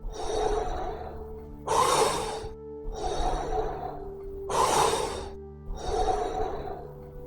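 Wim Hof method power breathing: deep, forceful breaths in and out through the mouth, one full cycle about every three seconds. A steady music drone sounds underneath.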